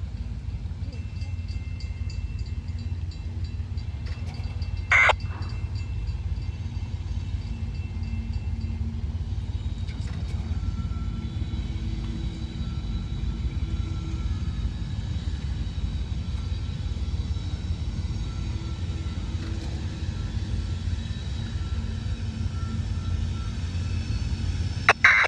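Freight train rumbling through a grade crossing, with the crossing's mechanical bells ringing faintly above the steady low rumble. A sharp bang about five seconds in, and another near the end.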